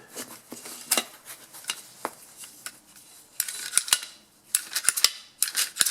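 Light metallic clicks and clinks, with a brief scraping rasp a little past halfway, as the small engine's recoil starter assembly is handled and worked after its rope and spring are wound one loop tighter.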